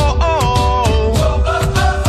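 Upbeat background music with a steady beat, a strong bass line and a melody that glides from note to note.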